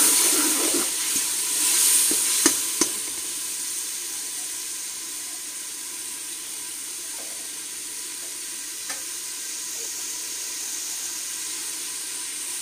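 Onion, tomato and spice masala sizzling as it fries in hot ghee in a pot. The sizzle is loudest for the first couple of seconds, then settles to a steady fry. Two sharp clicks come about two and a half seconds in.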